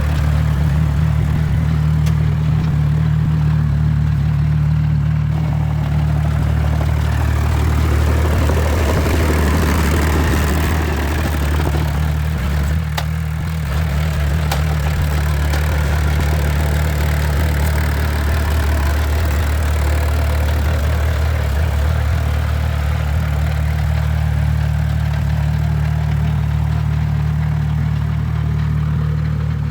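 Engine of a piece of heavy construction machinery running steadily, a loud, even low drone.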